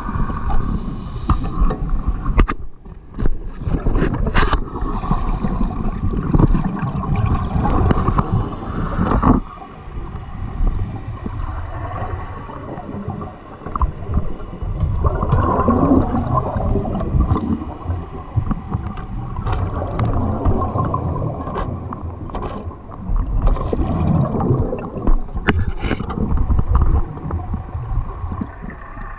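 Underwater noise heard through a diver's camera housing: an uneven low rumble that swells and fades, with bubbling from the diver's exhaled breath and scattered knocks and scrapes against the housing.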